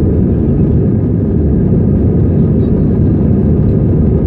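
Steady engine and airflow noise heard inside the cabin of an Airbus A320 climbing out just after takeoff, a low, even rumble with no change.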